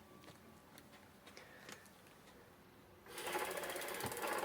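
An e-bike motor starts running on the throttle about three seconds in, a gritty, rattling mechanical whirr with fast fine ticking. It sounds crusty: the motor may need looking at.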